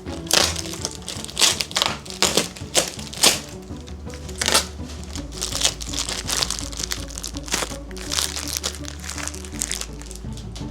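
Plastic packaging crinkling and rustling in irregular handfuls as gear is unwrapped, over steady background music.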